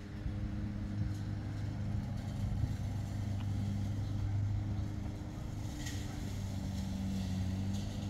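Steady low engine hum that holds on without a break, with a couple of faint ticks near the end.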